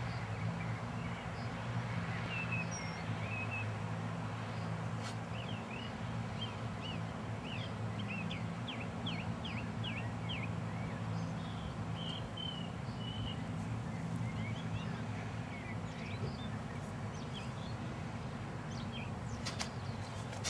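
Outdoor ambience: birds chirping in quick series of short calls over a steady low hum. There are a few sharp clicks near the end.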